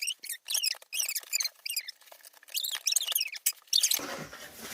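Rapid run of high-pitched squeaks and chirps that cuts off sharply about four seconds in.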